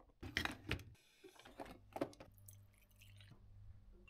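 Faint clicks, knocks and light clinks of a drip coffee maker and ceramic coffee mugs being handled. A low steady hum comes in about a second in.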